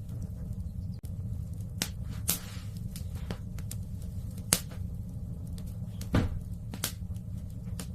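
Wood fire burning in a fireplace, crackling and popping irregularly, with several louder sharp pops over a steady low rumble.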